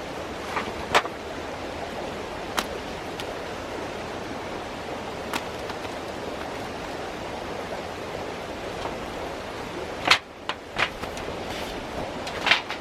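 Mountain stream flowing steadily as a continuous rush of water, with a few sharp clicks or knocks on top, one about a second in and a short cluster near the end.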